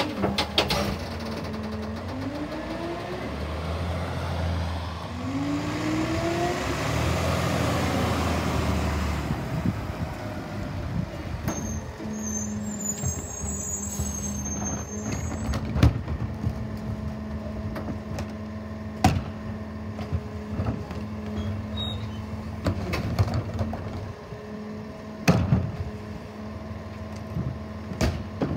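Peterbilt garbage truck with a Leach rear-loader packer body: for the first ten seconds the packer runs, with the engine revving up twice under the hydraulic load. The truck then idles steadily, broken by several sharp bangs as trash carts are knocked against the hopper while they are emptied.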